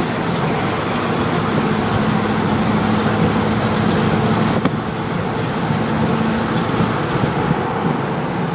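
2004 Ford F-150 with the 5.4 V8 driving uphill under throttle: steady engine hum over road noise, with the rattle that the owner hears only under throttle, which he tags as a possible catalytic converter rattle. A sharp click comes about halfway through, and the hiss drops off near the end.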